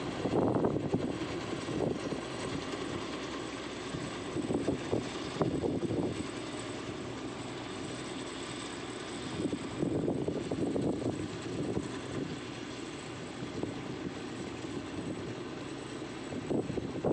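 Heavy machinery's diesel engine running steadily, with a few louder swells.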